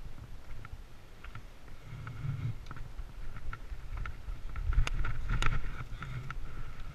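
Mountain bike riding down a dirt trail: tyres rumbling over the ground and wind on the microphone, with sharp rattling clicks from the bike. It is loudest about five seconds in, with two hard clacks.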